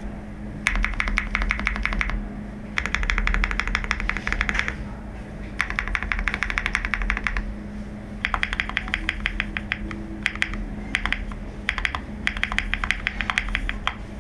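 QK65 custom mechanical keyboard being typed on fast, in several bursts of rapid keystroke clicks separated by short pauses.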